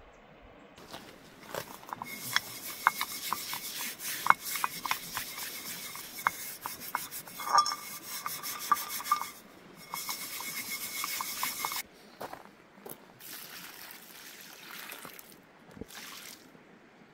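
Scraping and rubbing with many small irregular clicks, from about two seconds in until about twelve seconds, then fainter intermittent scraping.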